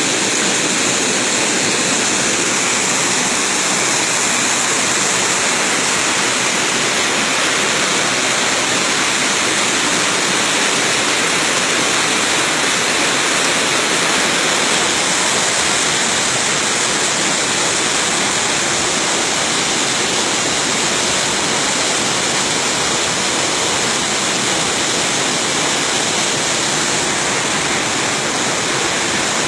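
Spring water gushing out of a rock opening into a stony stream, a loud, steady rush of water.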